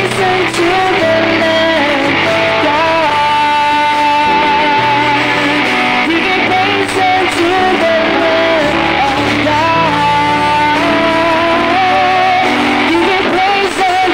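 Live worship band playing a song: a singer over keyboard, bass guitar, electric guitar and drums, held melody notes over a bass line that changes every second or two.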